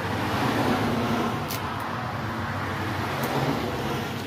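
Rushing noise of passing road traffic that swells in the first second or so and then stays steady, over a low engine hum.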